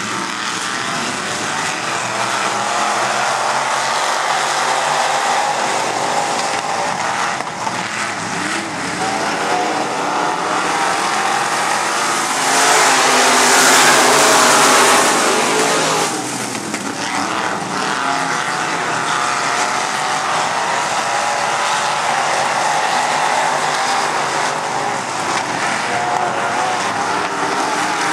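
A pack of dirt-track modified race cars running laps, their engines droning together with a wavering pitch. About halfway through, one car passes close and the sound swells for a few seconds, then drops back to the steady pack noise.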